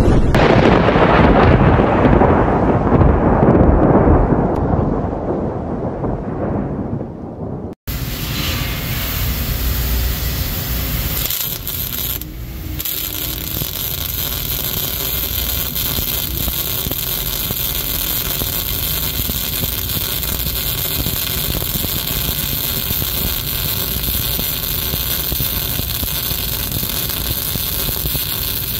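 A deep intro boom whose hiss dies away over about eight seconds, then a cut to an electric welding arc crackling and hissing steadily, with a brief dip about twelve seconds in.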